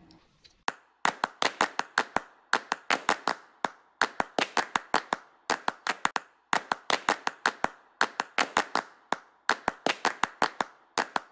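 Rapid series of sharp claps, about five a second in uneven short runs with brief gaps. They begin just under a second in and stop abruptly at the end.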